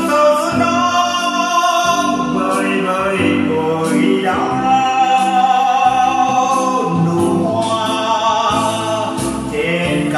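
Music: a slow Vietnamese song, sung over organ accompaniment.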